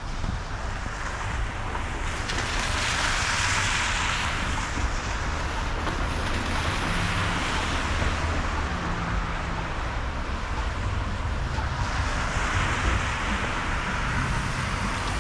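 Street traffic on a wet, slushy road: tyres hissing as vehicles pass, swelling twice, with a steady low rumble of wind on the microphone.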